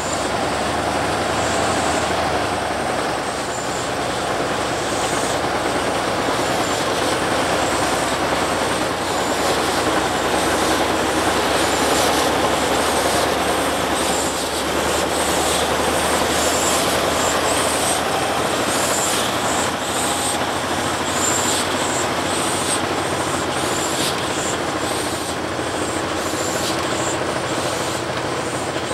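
Stationary locomotive at a standstill, giving a steady, loud running noise with a hiss, unchanging throughout.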